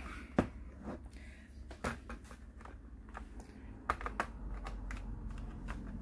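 Scattered sharp plastic clicks and taps from an Asus X501A laptop's case and keys being handled and pressed by hand, the sharpest click about half a second in.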